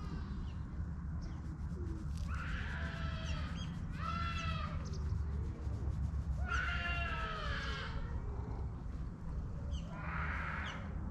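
A cat meowing four times in separate drawn-out calls, over a steady low rumble.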